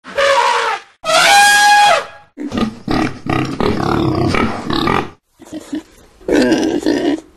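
Animal calls played one after another with abrupt cuts: a loud cry at the start, a second cry with a falling pitch about a second in, then a long run of rapid pulsing calls and a shorter one near the end.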